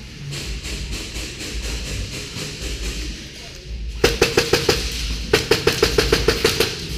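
Background music for the first few seconds. Then, about four seconds in, an airsoft gun fires two full-auto bursts of sharp cracks, about nine shots a second: the first burst under a second long, the second about a second and a half.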